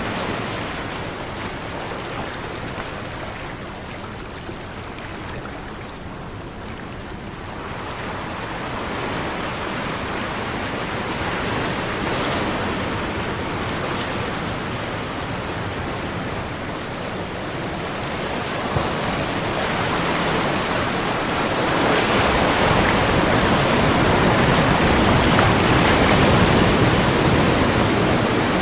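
Ocean surf washing onto a shore as a continuous rush, easing off in the first seconds, then building again and swelling loudest near the end as waves break.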